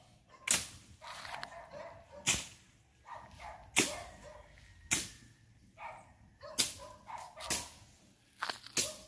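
Sharp clicks or snaps roughly every one to one and a half seconds, the loudest sounds, with dogs barking between them.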